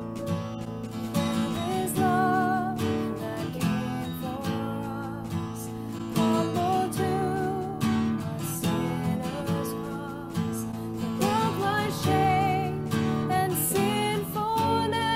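Contemporary worship song performed by a band: a woman singing with vibrato over strummed acoustic guitar, with bass, piano and drums.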